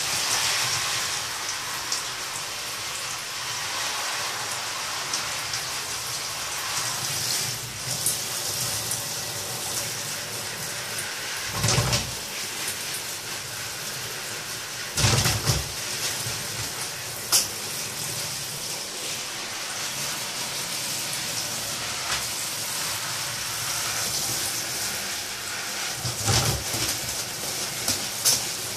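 Handheld shower spray hissing steadily onto a blue-and-gold macaw and the plastic bucket it stands on, with a few brief louder flurries, about three, as the macaw flaps its wet wings in the water.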